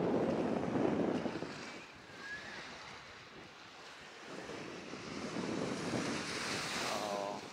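Wind buffeting the microphone over small waves washing onto a sandy shore. The noise is strongest at first, eases about two seconds in, and builds again toward the end.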